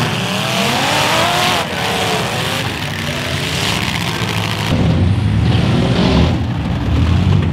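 Demolition derby cars' engines revving hard, their pitch rising and falling, with a sharp hit about a second and a half in. A heavier, deeper engine rumble takes over from about five seconds in.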